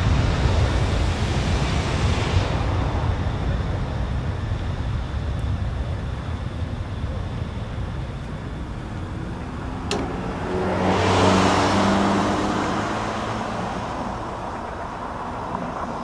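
Boeing 747-400 freighter's jet engines rumbling as it rolls out along the runway after touchdown, the noise fading as it moves away, with a brief swell about eleven seconds in.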